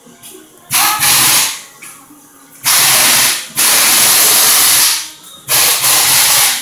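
Four loud bursts of hissing air, each roughly a second long, with short pauses between them.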